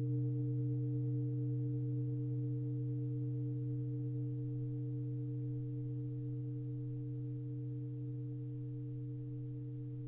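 Handmade 24-inch high-carbon steel gong on its metal stand, ringing on after being struck: a low steady hum with two higher tones above it, slowly fading away.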